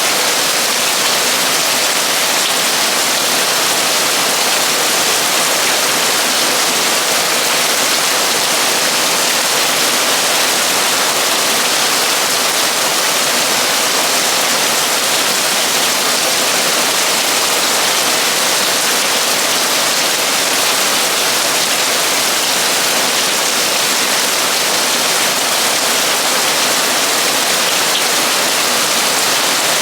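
Torrential rain drumming on a metal roof, a steady, dense hiss without letup.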